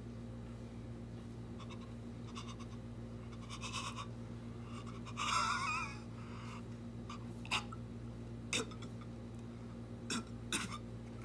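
A cartoon baby's voice gagging briefly about five seconds in, a wavering, retching sound, with fainter mouth sounds before it. A few short sharp clicks follow later. A steady low hum runs underneath.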